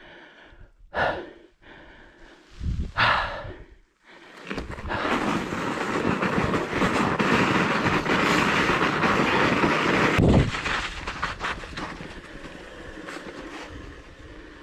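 A few heavy breaths from the rider, then a mountain bike's tyres rolling and crunching over snow, loud and even for several seconds, easing to a quieter rolling over grass and gravel near the end.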